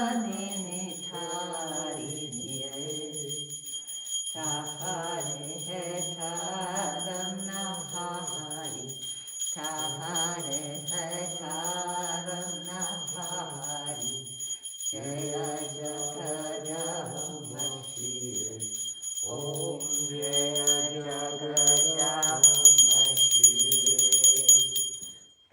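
Voices singing a devotional chant in phrases of a few seconds, over a small hand bell rung steadily throughout. Near the end the bell is rung rapidly and louder, then bell and singing stop together.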